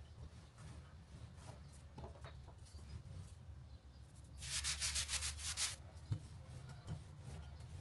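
Fingers rubbing a pinch of flour over a sheet of dough. Midway there is a quick run of dry, rasping strokes lasting about a second and a half, about six a second. Around it, a wooden rolling pin rolls over the dough with faint scraping and ticks.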